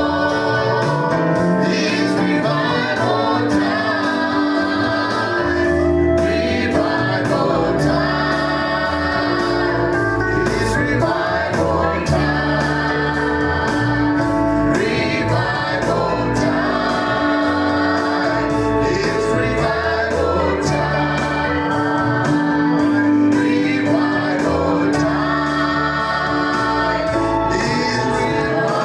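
Gospel music with a choir singing over a steady beat.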